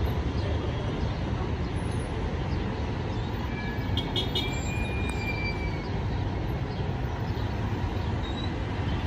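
Steady rumble of heavy road traffic, cars, vans and buses on a congested main road.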